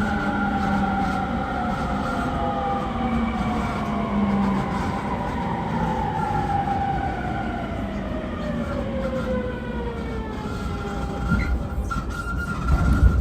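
E231 series commuter train heard from inside the car: its traction motors whine in several tones that fall slowly in pitch over the running noise as the train brakes, levelling into a steady tone near the end.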